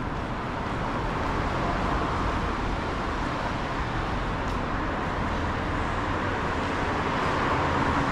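Steady city street noise of road traffic, a continuous wash of passing cars that grows slightly louder near the end.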